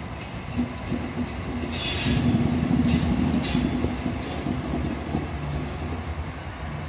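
Diesel locomotive hauling freight wagons slowly past: a steady low engine hum with the wheels clicking and clattering over the rail joints, loudest about two to three seconds in.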